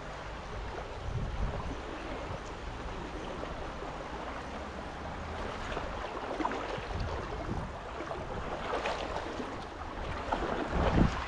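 River water rushing, with wind buffeting the microphone in low gusts, the strongest near the end.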